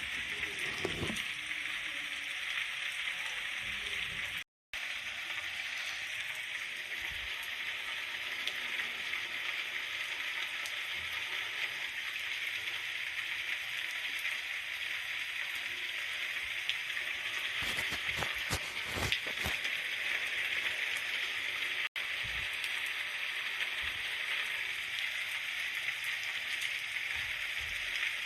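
Steady rain falling, an even hiss of many drops, broken by a split-second gap of silence about four and a half seconds in.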